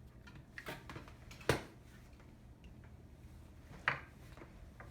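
Unplugging and handling of the sewing machine motor's plug and cord: a few light clicks and knocks, the sharpest about one and a half seconds in and another near four seconds.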